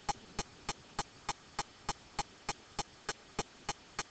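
Faint, evenly spaced clicks, about three a second, over a low hiss.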